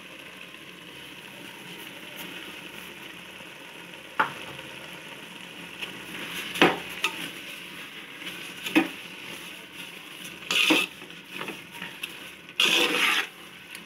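Grated ash gourd cooking in ghee in a metal pot, with a steady low sizzle. From about four seconds in, a spoon scrapes and knocks against the pot as sugar is stirred into the thickened mixture, with a longer run of scraping near the end.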